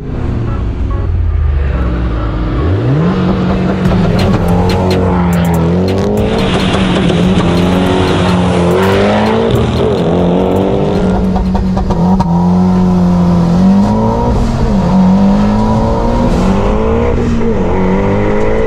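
Jeep Grand Cherokee SRT8's 6.4-litre HEMI V8 at full throttle from a standing start, heard inside the cabin: after a low rumble, the revs climb hard about two and a half seconds in, then rise and drop back again and again as it shifts up through the gears.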